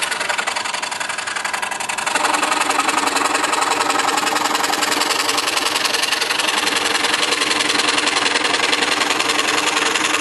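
DeWalt scroll saw running, its number 5 Olson blade stroking up and down fast as it cuts through a wooden board. Steady buzz, a little louder from about two seconds in.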